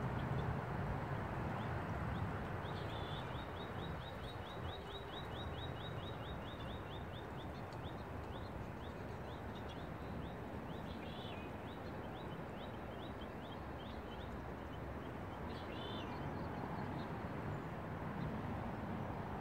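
A small bird gives a long run of quick, rising chirps, about five a second, for several seconds, then a few scattered chirps, over a steady outdoor rushing noise.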